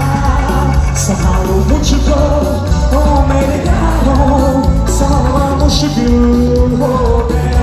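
A live band playing through a loud PA system while a male singer sings, holding long notes over a heavy bass and drum beat.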